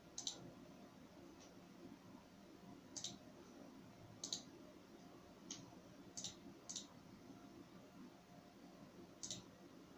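Computer mouse button clicking about eight times at uneven intervals, single sharp clicks with one fainter than the rest, over a faint low background hum.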